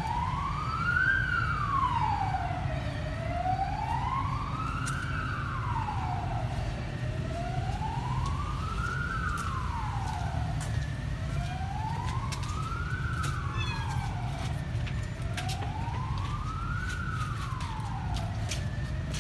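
Siren wailing, its pitch rising quickly and falling more slowly in a regular cycle about every four seconds, over a steady low rumble. A few sharp clicks come in the last third.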